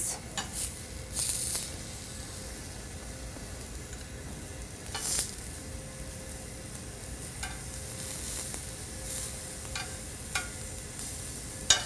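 Chicken tenders sizzling as they sear in a hot pan. A few short clicks and scrapes come through the sizzle as the pieces are moved around the pan.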